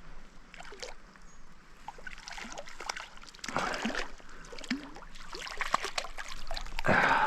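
Water splashing and sloshing as a small hooked trout thrashes at the surface while being brought to hand, with louder splashes about three and a half seconds in and near the end.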